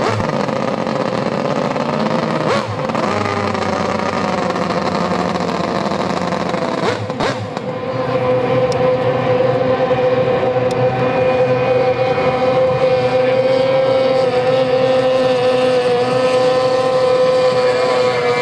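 Outboard racing engines of A Stock runabouts at full throttle, a steady high-pitched whine that grows louder about eight seconds in.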